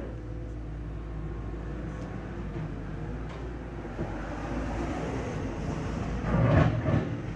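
Steady engine hum, then a vehicle drives past close by, rising to its loudest about six and a half seconds in and fading again.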